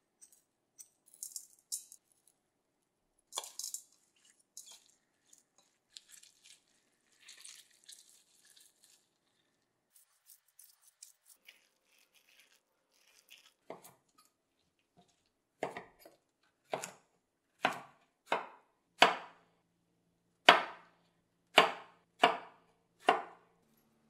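A kitchen knife chopping zucchini on a wooden cutting board: about nine firm strokes, roughly one a second, getting louder through the second half. Before that, scattered light clicks and scrapes of a spoon and gloved hands mixing a chopped vegetable filling in a stainless steel bowl.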